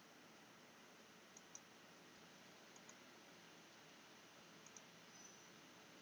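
Faint computer mouse button clicks, three quick press-and-release pairs spaced a second or so apart, over a steady low hiss.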